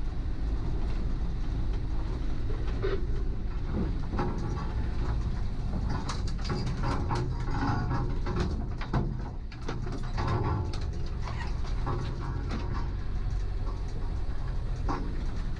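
Steady low engine and road rumble from inside a 4x4 driving slowly along a rough, rutted dirt track. From about six seconds in, many sharp knocks and rattles come from the bodywork and suspension over the bumps.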